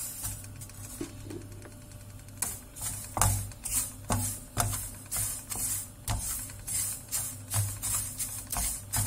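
Wooden spatula scraping and tossing dry tel kadayıf strands around a non-stick frying pan as they are toasted, a rustling scrape with each stroke. The strokes are faint at first, then come about twice a second from about two and a half seconds in.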